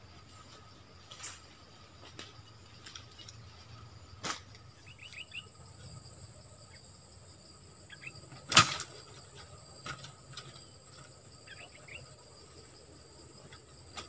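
Bird giving short quick runs of chirps, once about five seconds in and again near the end, over a steady high whine. A sharp knock about eight and a half seconds in is the loudest sound, with a smaller click a little before it.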